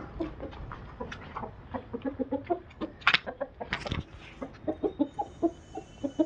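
Aseel chickens clucking in a run of short, low notes, with two sharp, louder sounds about three and four seconds in.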